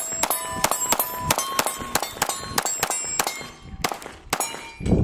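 Glock 43X 9mm pistol with a compensator firing a rapid string of shots, about three to four a second, each followed by steel targets ringing. A short pause about three and a half seconds in, then a few more shots.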